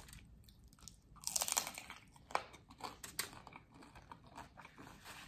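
A bite into a crispy fried corn tortilla taco, with a burst of crunching about a second in, then crunchy chewing in many short irregular crackles.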